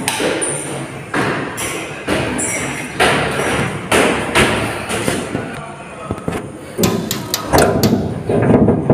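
A series of heavy thuds, about one a second at first and coming faster near the end. Over them a man yells a drawn-out 'Aiiii' at the start and shouts 'dai, vannga da' near the end.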